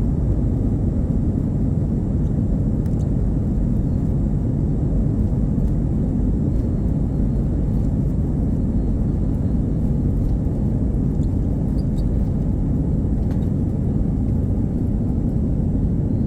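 Airbus A320-200 cabin noise at takeoff: a steady, loud, low rumble of the engines and rushing air, heard from inside the cabin.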